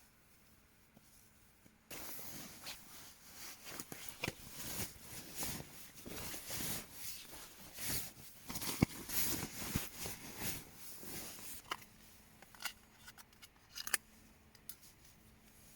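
Close rustling and crinkling of fabric with scattered sharp clicks, starting suddenly about two seconds in and thinning out to a few clicks near the end, like camping gear being handled in a small tent.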